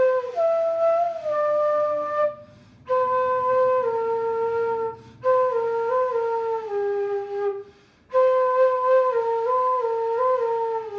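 A flute playing a slow solo melody, one note at a time, in four short phrases with brief pauses between them.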